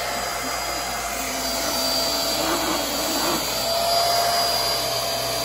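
Queen Made corded handheld vacuum cleaner running steadily with a high motor whine, its floor nozzle pushed over a shaggy carpet.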